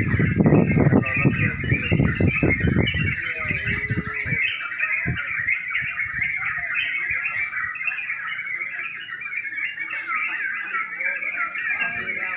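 Many caged yellow-vented bulbuls singing at once in a dense, continuous chatter of quick chirps and falling notes. Loud low clattering noise runs through the first four seconds or so.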